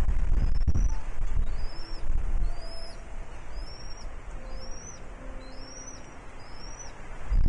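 Bald eagle giving a series of thin, high chirps, about one a second, each note rising and falling. Under them is a low rumbling noise, loudest in the first two seconds.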